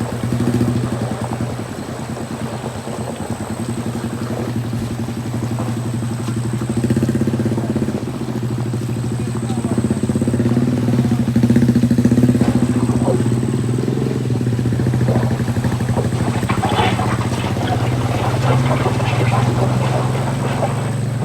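Vehicle engine running steadily at a low, even pitch, with faint voices near the end.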